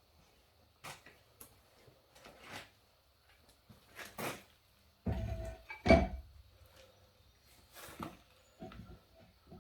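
Scattered knocks and clunks of things being handled, with the two loudest about five and six seconds in.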